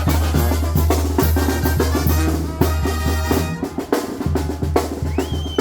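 Oaxacan brass band (banda de viento) playing, with bass drum and snare beating steadily under a deep bass line; the low bass drops out briefly about three and a half seconds in.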